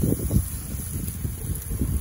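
Wind buffeting the microphone: an irregular low rumble in gusts, strongest in the first half second, over a steady faint hiss.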